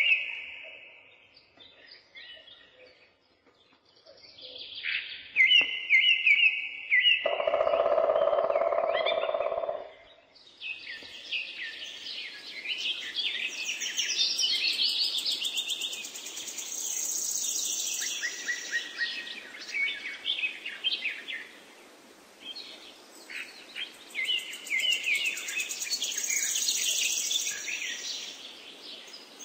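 Birdsong: several birds chirping and trilling, sparse at first, then thickening into a dense chorus about ten seconds in. A lower, louder held sound lasts a couple of seconds just before the chorus builds.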